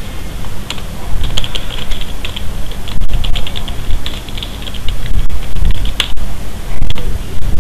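Typing on a computer keyboard in short runs of quick key clicks, over a steady low rumble.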